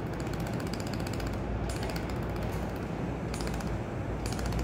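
Laser welding machine during focus adjustment: several bursts of rapid clicking that start and stop, over a steady low machine hum.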